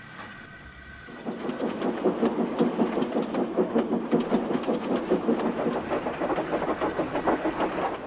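Steam locomotive exhaust chuffing, starting about a second in and going on as a steady, quick beat of about three to four chuffs a second.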